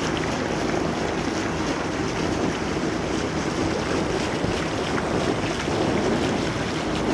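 Steady wind noise on the microphone over water rushing past the hull of a moving sailing catamaran, with a faint steady hum underneath.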